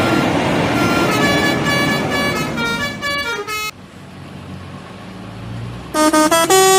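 A bus's telolet horn plays a melody of short notes stepping up and down over traffic noise, the last notes falling before it cuts off a little past halfway. After a quieter stretch with an engine hum rising in pitch, another telolet horn starts loudly near the end with rapid notes stepping between pitches.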